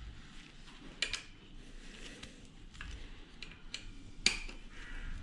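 Light metallic clicks and taps of small tools and bolts being handled during work on a bicycle shock mount, with a sharper click about a second in and the loudest one near the end.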